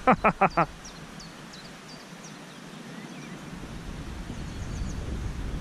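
Outdoor ambience: a few short, high bird chirps, with wind noise on the microphone building up over the second half. It opens with a few quick syllables of a man's voice.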